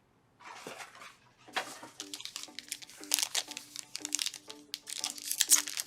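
Plastic trading card wrapping being crinkled and torn open by hand, a brief rustle first, then a long run of dense crackling and snapping.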